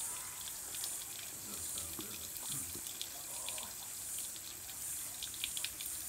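Kookaburras splashing in a bird bath: scattered small splashes and drips over a steady high hiss.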